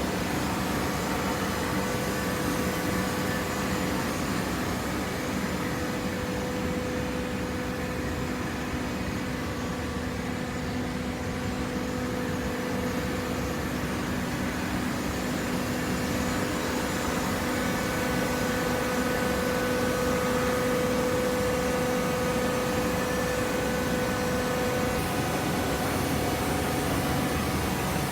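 Hydraulic baler's motor and pump running with a steady hum, a little louder in the second half.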